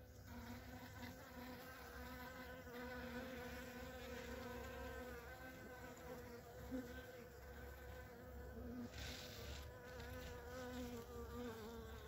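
Honeybees buzzing on the comb: a faint, steady hum with a slightly wavering pitch.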